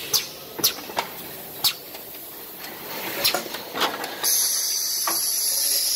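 Kitchen towel paper converting line (embosser and rewinder) running, with irregular sharp clicks and knocks from the machinery. About four seconds in, a loud steady hiss sets in and carries on.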